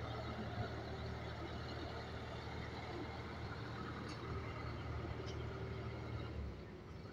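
An engine idling steadily with a low, even drone, which drops away about six and a half seconds in.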